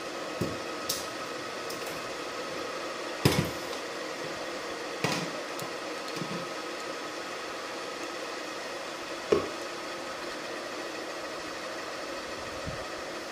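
Steady fan-like hum of a kitchen, broken by a few sharp knocks of kitchenware, the loudest about three seconds in and another about nine seconds in.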